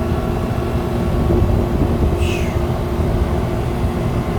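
Air-conditioning condensing unit running: a steady low rumble with a constant hum, its condenser coil still dirty and unwashed. A brief falling high chirp about halfway through.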